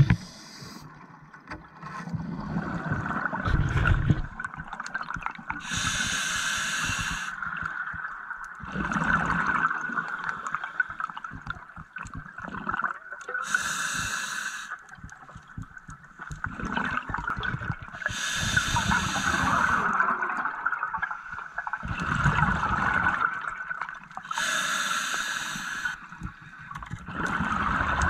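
Scuba diver breathing through a regulator underwater: a hissing inhalation about every six to seven seconds, each followed by a low rumble of exhaled bubbles, over a steady underwater hiss.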